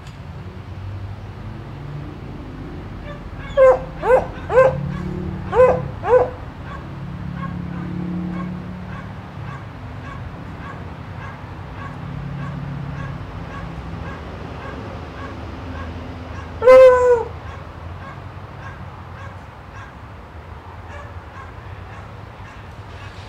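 A dog barking: five short barks in quick succession about four seconds in, then one longer bark that falls in pitch about two-thirds of the way through.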